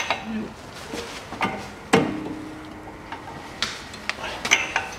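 Metal clanks and clicks of a breaker bar and 32 mm socket being fitted and worked on a car's front drive-shaft nut. There is one sharp knock about two seconds in with a brief metallic ring after it, and a run of quicker clicks near the end.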